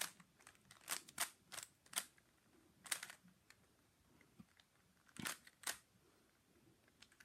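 Rubik's cube layers being turned by hand: a run of sharp plastic clicks as the faces snap into place, several in the first three seconds, then a pause and two more a little after five seconds.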